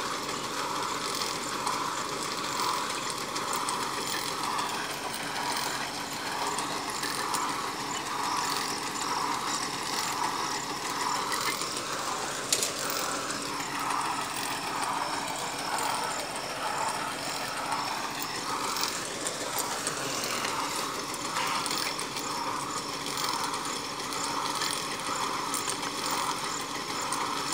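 A large engine running steadily, with a regular pulsing beat. There is one sharp knock about twelve seconds in.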